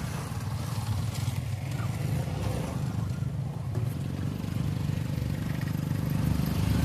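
Small motorcycle engines running steadily at low revs as several bikes pass one after another on a rough dirt trail.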